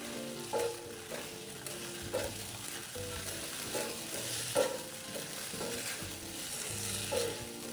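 Yellow noodles and bean sprouts sizzling in a hot wok as they are tossed and stir-fried with a spatula, with a steady frying hiss and the scrape of each stroke against the pan.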